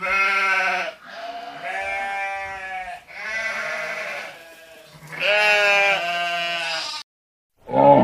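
Sheep bleating: four long, wavering bleats one after another.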